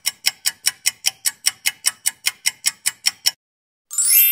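Clock-ticking sound effect used as a countdown timer, about four to five even ticks a second, stopping suddenly a little past three seconds. Near the end a quick rising whoosh leads into a bright ringing chime, the 'time's up' signal.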